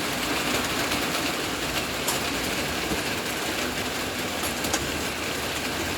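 Heavy rain falling: a steady hiss with faint scattered clicks of drops.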